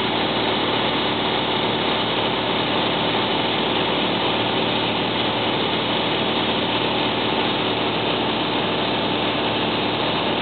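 Aircraft engines running in a steady, even drone, heard from inside the cabin, with a few faint steady hums within the noise.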